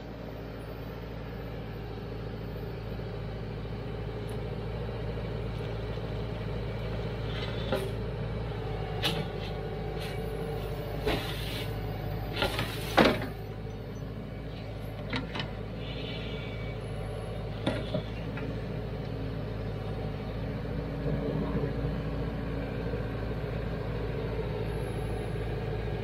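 Branson compact tractor's diesel engine running steadily while its backhoe digs soil, with scattered sharp clanks and scrapes from the bucket and boom, the loudest about halfway through.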